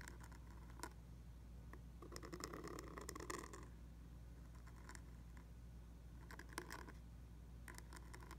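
Pointed steel dip-pen nib scratching faintly across paper as a letter is written. The longest run of short scrapes comes about two to three and a half seconds in, with a few single light ticks elsewhere, over a steady low hum.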